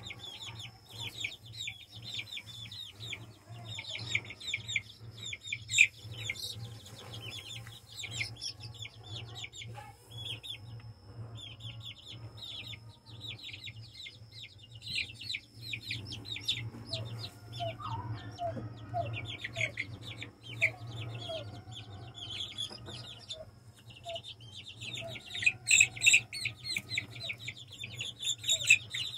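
Chicks peeping constantly, a dense stream of rapid high cheeps that gets loudest near the end. In the middle a lower, softer call repeats for several seconds under the peeping, over a steady low hum.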